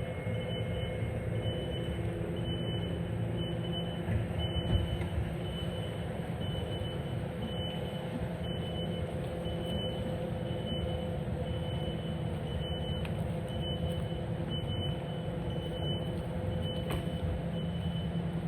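Diesel engine of heavy equipment running steadily while its reversing alarm beeps, about two short beeps a second.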